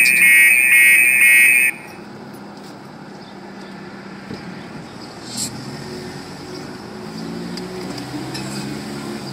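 A loud, wavering electronic censor tone laid over swearing, cutting off suddenly about a second and a half in. It is followed by the steady road noise of a van's cabin on the move.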